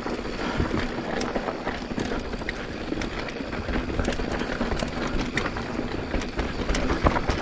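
Giant Trance 27.5 full-suspension mountain bike rolling down a rocky, loose trail: tyres grinding over dirt and stones with frequent short knocks and rattles from the bike, under low wind rumble on the microphone.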